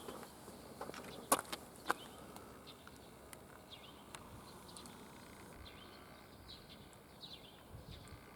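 Small birds chirping over faint rural background noise, a run of short falling chirps, with two sharp clicks a little over a second in.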